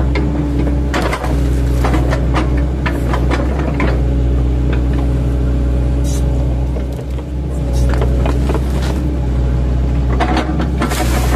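An 8-ton mini excavator's diesel engine running steadily under load, with repeated cracks and knocks as the bucket's chipping blades chop into oil palm trunks, busiest at the start and near the end.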